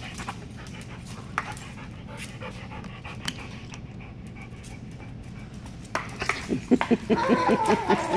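Large black dog panting, with an even rhythm of about four breaths a second that gets louder about six seconds in.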